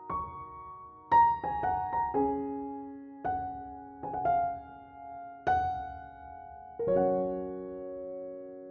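Background music: slow, gentle piano playing single notes and chords, with a final chord near the end left to ring.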